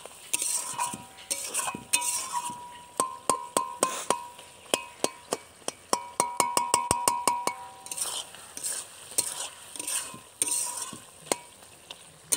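Metal spatula scraping and knocking against an aluminium kadai as mutton is stir-fried in spiced oil, the kosha stage of the curry: quick clinks, several a second, with the pan ringing after each, over a faint sizzle.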